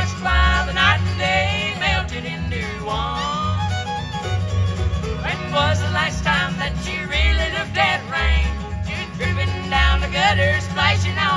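Bluegrass band playing an instrumental passage, a fiddle carrying a quick, sliding melody over mandolin, acoustic guitar and steady upright bass notes.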